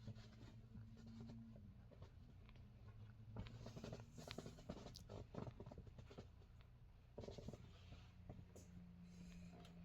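Near silence: faint scattered clicks and scratchy rubbing over a low steady hum, busiest in the middle few seconds.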